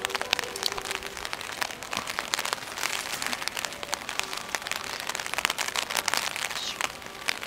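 Rain falling, with many irregular sharp drop hits close by over a steady hiss.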